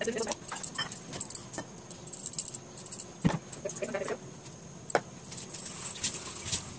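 Stainless-steel mixer-grinder jar and its lid being handled: scattered light metallic clinks and knocks, with a sharper knock about three seconds in and another near five seconds.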